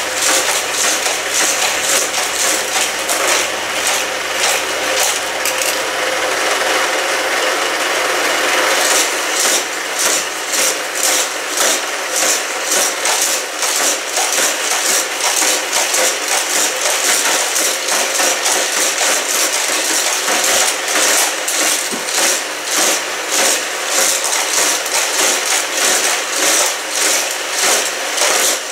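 Two motorized Hot Wheels Criss Cross Crash track sets running at once: the motor-driven power wheels whirr as they fling die-cast cars around the plastic loops, and the cars clatter along the track and clack into each other in the crash zones. The result is a rapid, continuous clatter. A low hum drops out about seven seconds in.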